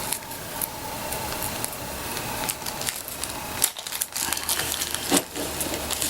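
Small parts of a KWA KRISS airsoft gun's nozzle housing being handled: scattered light clicks and knocks with rustling, two sharper clicks in the second half.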